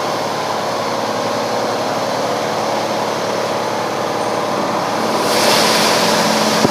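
PDQ LaserWash 360 touchless automatic car wash running: a steady machine hum under the hiss of its high-pressure water spray. The spray hiss grows louder about five seconds in as the gantry arm blasts the car with water.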